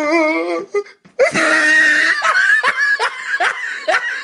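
Loud laughter, with a wavering pitched stretch near the start and then repeated short laughing pulses after a brief pause about a second in.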